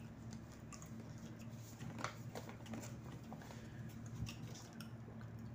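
Quiet room tone: a faint steady low hum with a few soft clicks.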